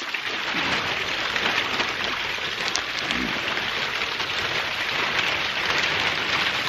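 Clear plastic sheeting crinkling and rustling as it is unfolded and spread out by hand, a dense crackle that goes on without a break.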